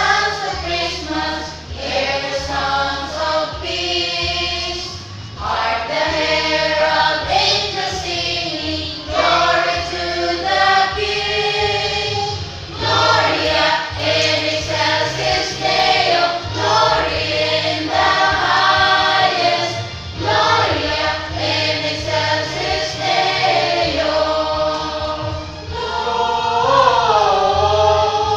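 A choir singing with accompaniment, several voices holding sustained sung notes.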